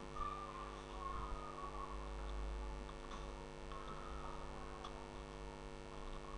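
Steady electrical mains hum with its overtones, with a few faint clicks of keyboard typing.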